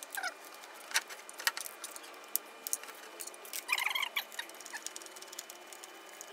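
Scattered small clicks and metallic clinks of a screw and screwdriver being handled and worked into a scooter's plastic body panel, with a short burst of clinking about two-thirds of the way through.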